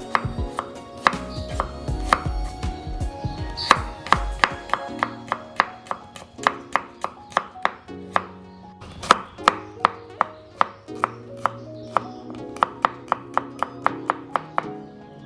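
Knife chopping on a cutting board, sharp uneven cuts about two or three a second, over background music.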